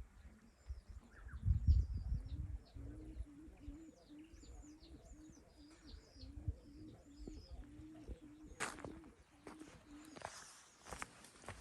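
A dove cooing in a long, even series of low notes, about two a second, with small birds chirping thinly higher up. A few low thumps come about two seconds in, and some sharp knocks near the end.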